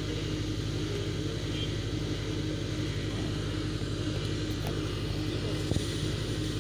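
A fire engine's diesel engine runs steadily at idle: a low, even hum with a faint regular pulsing. A couple of light knocks come near the end.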